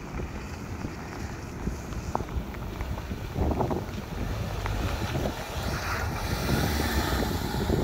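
Wind buffeting the microphone over the low rumble of a Land Rover Discovery Sport driving off-road, growing steadily louder, with a few scattered clicks.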